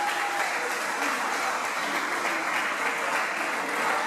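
Small crowd applauding, with a voice calling out over the clapping at the start.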